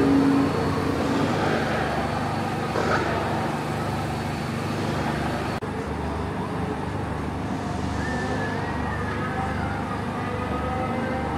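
Formula 1 car's turbocharged hybrid V6 engine running, a steady din with a wavering engine tone that falls in pitch about eight seconds in.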